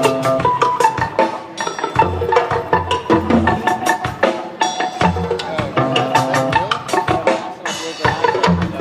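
Live rock band playing an instrumental jam, with busy drum hits over a bass figure that repeats about every three seconds.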